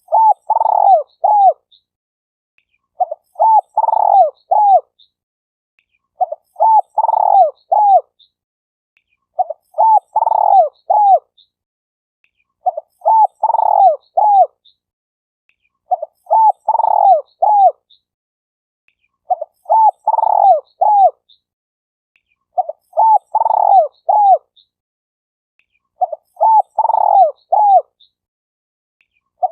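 Spotted dove calling: the same short phrase of several cooing notes, repeated at even spacing about every three seconds.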